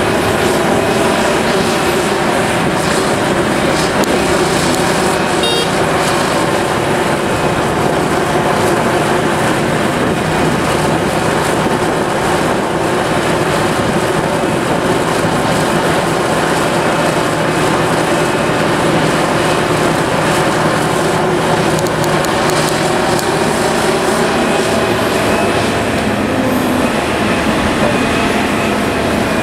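Liebherr 974B excavator's large diesel engine running steadily at working revs while loading articulated dump trucks, with the noise of the machinery at work.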